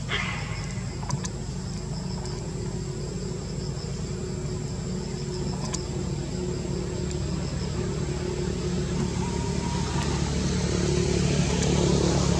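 A low, steady engine hum that slowly grows louder toward the end, with a thin high steady tone above it.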